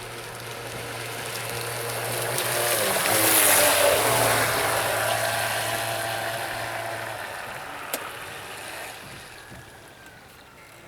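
Vintage SHG Shadow RC boat, driven by a brushless motor through a gearbox, running past at speed: a steady motor whine with water hiss that swells to its loudest about three and a half seconds in, then fades away. A single sharp click about eight seconds in.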